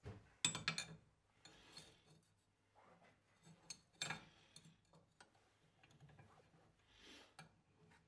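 Faint metal-on-metal clinks and knocks as a square steel tube is set into a cast-iron drill press vise and the vise is handled: a quick cluster of sharp clicks about half a second in, a single knock around four seconds, then scattered light taps.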